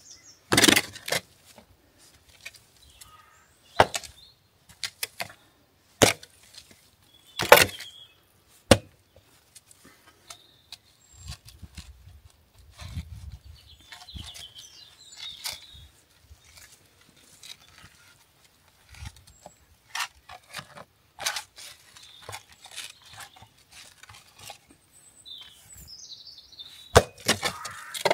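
Digging by hand in hard, stony ground: a tool striking and scraping soil and stones in sharp, irregular knocks, the loudest about half a second and seven seconds in.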